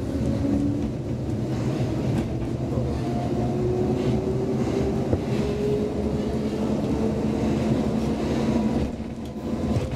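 Roslagsbanan X10p electric commuter train running, heard from inside the carriage: a steady rumble of wheels on rails, with a thin whine slowly rising in pitch. The noise drops briefly near the end.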